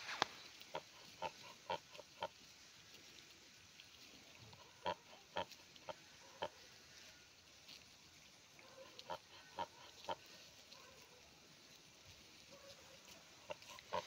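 A flock of domestic geese grazing, giving short, soft calls in small clusters of two to four, a few seconds apart.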